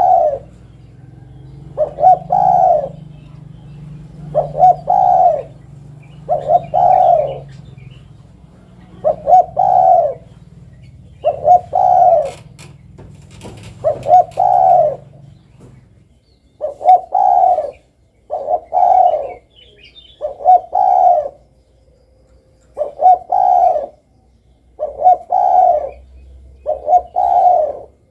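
Spotted dove (derkuku) cooing over and over, one loud phrase about every two seconds, each made of short notes followed by a longer coo.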